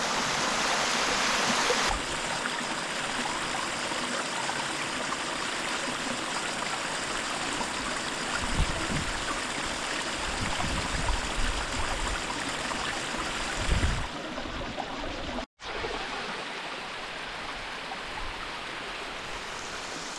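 Water of a mountain stream rushing steadily over rocks. The rush changes abruptly about two seconds in and again near fourteen seconds, with a brief dropout soon after, where the recording cuts between takes. A few low rumbles come in the middle.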